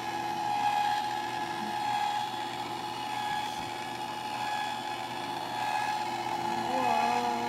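Electric ice cream maker running, its paddle motor giving a steady whine as it churns the strawberry ice cream base.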